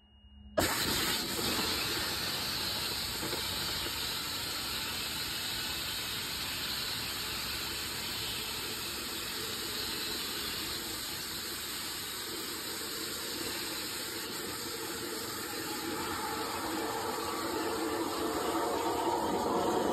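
Titan II rocket engine static firing on a vertical test stand: it lights abruptly about half a second in, then burns with a steady, rushing hiss that swells slightly near the end.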